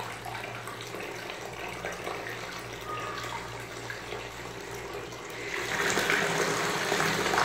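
Tap water running steadily through a stocking of crumbled bubble bar into a plastic tub heaped with foam. The flow grows louder about five and a half seconds in.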